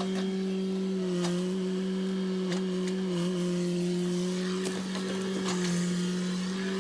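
An engine running at a steady speed, giving one constant drone that dips slightly now and then, with a few light clicks over it.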